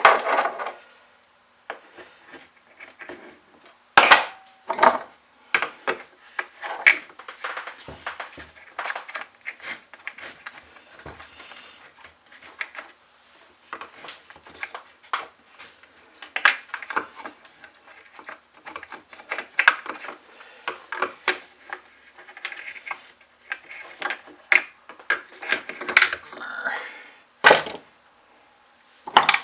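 Small metal tools clicking, clinking and scraping against the chainsaw while its fuel filter is fished out of the fuel tank, with two sharper knocks, one about four seconds in and one near the end.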